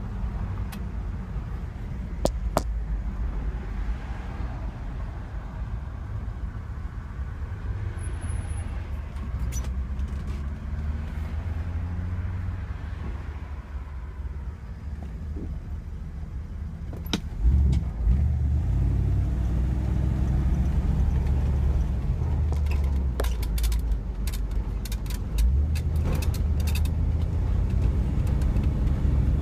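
A 1964 Pontiac Parisienne's engine running while the car is driven, heard from inside the cabin over a steady low rumble of road noise. The engine note rises as the car gathers speed, and about two-thirds of the way in the sound grows suddenly louder and stays up. Light clicks come in near the end.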